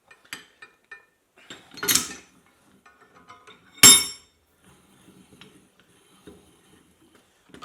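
Steel leg-vise parts clinking and knocking as they are handled and fitted together, with two louder metal clanks about two and four seconds in; the second rings briefly.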